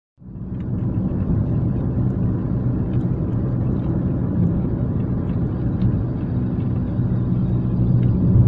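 Steady low drone of a vehicle's engine and tyres heard from inside the cab while cruising at about 84 km/h, starting abruptly just after the start, with faint scattered ticks over it.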